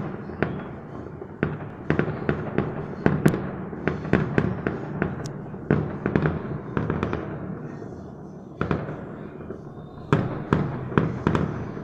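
Fireworks going off across a city in a rapid, irregular string of bangs over a steady rumble. There is a short lull about eight seconds in before another run of bangs.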